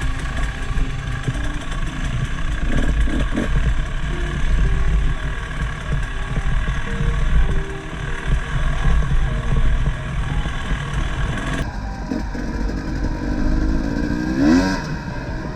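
Off-road motorcycle engine running over rough ground, with a rising rev near the end.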